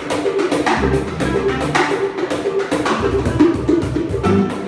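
Small live band playing: clarinet melody over electric guitar, upright bass and cajón with hand drums, a steady percussive beat underneath.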